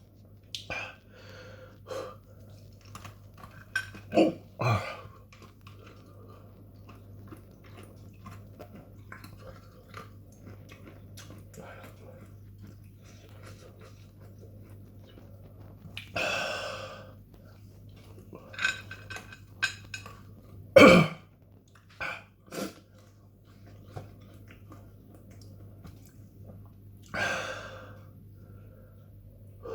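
A person chewing crunchy super-hot chilli snacks, with small wet mouth clicks throughout. Three louder sudden throat and breath sounds break in, the sharpest about two-thirds of the way through, as the chilli burn builds.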